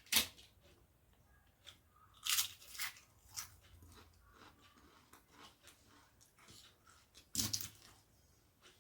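A person eating close to the microphone: several sharp crunching bites, the loudest near the start, around two and a half seconds in and about seven and a half seconds in, with quieter chewing between.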